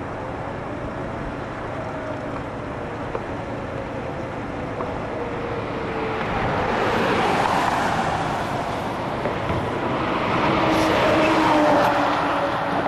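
Highway traffic passing close by: steady road noise, with one vehicle swelling past about seven seconds in and a semi-trailer truck going by loudest near the end.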